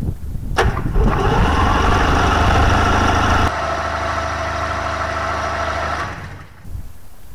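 Rotax 503 two-cylinder two-stroke engine of a Challenger 2 ultralight starting about half a second in and running, with an abrupt change in its sound about halfway through; it drops away near the end.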